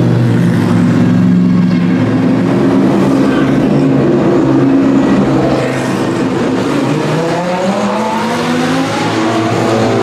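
Engines of a line of GT race cars, among them a Mercedes-AMG GT3 and Porsche 911s, running steadily at low speed as they roll down the pit lane and pass one after another. The sound is loudest in the first half; later a rising engine note comes from the next car approaching.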